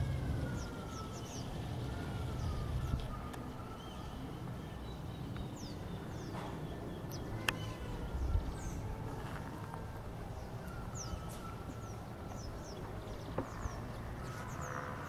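Outdoor ambience of many birds calling, mostly short high falling chirps with some longer gliding calls lower down, over a steady low rumble. One sharp click about seven and a half seconds in.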